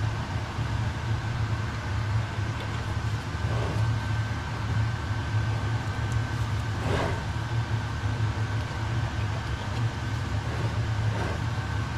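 Steady low mechanical hum with a faint high whine running through it, and a few soft scrapes as a knife trims pastry against the rim of a pie tin.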